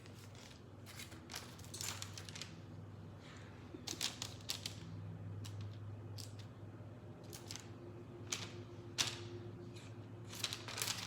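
Scattered light clicks and taps, irregularly spaced, from hands handling cookie dough pieces on a baking tray. A low steady hum runs underneath.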